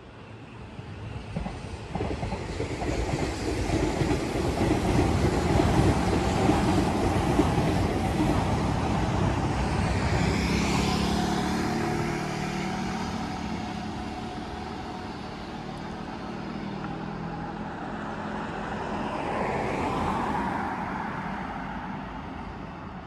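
An electric train runs past on the railway embankment with a long rising and fading rumble. Road vehicles pass through the underpass below at the same time, a motor scooter and cars, and their pitch drops as they go by, about ten seconds in and again near the end.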